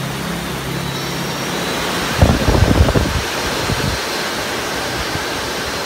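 Homemade electric motorcycle's rear wheel spinning off the ground under motor power: a steady whir with a faint high whine. About two seconds in, a second-long cluster of low thumps.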